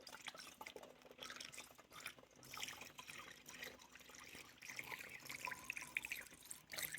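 Antifreeze coolant being poured into a car's coolant reservoir, trickling and gurgling faintly.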